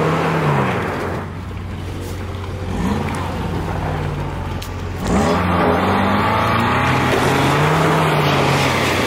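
Off-road vehicle engines revving up and down during a strap recovery of a Jeep Wrangler stuck in broken ice and mud. The sound grows louder and rougher about five seconds in as the pull takes hold.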